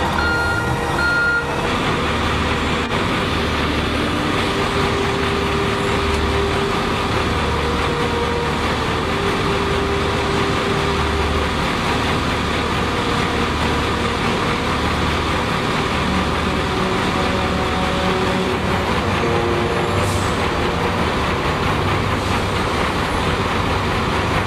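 XCMG XLS803 asphalt distributor truck running steadily: a dense machine noise with a low rumble that swells and fades every second or two. Two short beeps sound just after the start.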